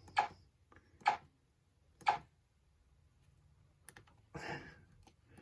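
Short clicking blips about a second apart, three in the first two seconds and another at the very end, as switch rows are shorted in a pinball MPU's switch edges test, with a softer rustle about four and a half seconds in.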